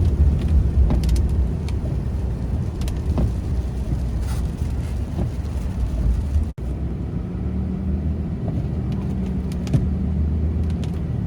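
Car's steady low rumble of engine and tyres, with scattered light clicks; the sound cuts out for an instant about six and a half seconds in.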